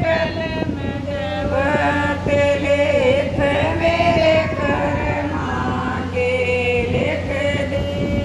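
Women singing a Hindi devotional bhajan in long, drawn-out held notes.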